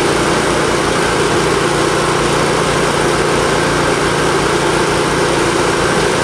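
Fire truck engine running steadily at a constant idle, a continuous mechanical drone.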